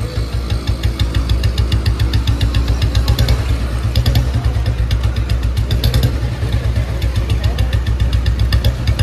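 Old Royal Enfield Bullet's single-cylinder engine running fast at idle, a little faster from about a second in, with a quick, regular metallic tik-tik on top of its thump. The mechanic puts the ticking down to play that has come into the tappets and cam gears.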